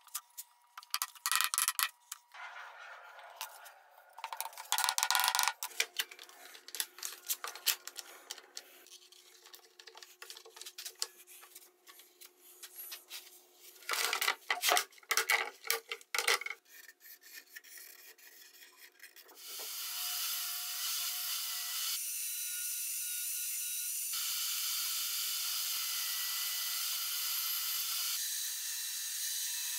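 A marker scraping across fir boards in short bursts of strokes. About two-thirds of the way in this gives way to a table saw running through wood, a steady loud cutting hiss broken by a few abrupt edit cuts.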